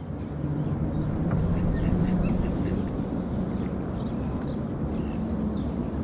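Sparrows chirping in quick, scattered high notes over a steady low hum that grows a little louder and higher in the first couple of seconds.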